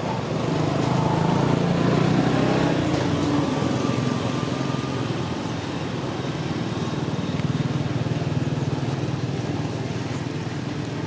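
A motor engine running steadily, growing louder over the first two seconds, easing off, then swelling again later.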